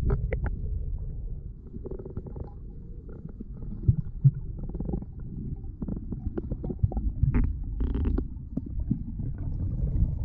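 Muffled low rumble with scattered clicks and knocks: an action camera's sealed waterproof housing recording underwater during a spearfishing dive.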